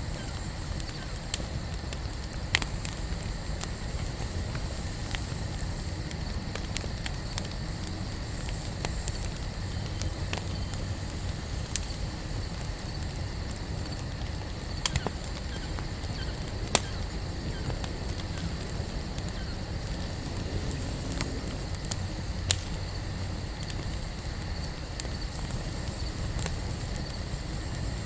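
Wood campfire burning with a steady low rumble of flames and scattered sharp crackles and pops, about half a dozen standing out.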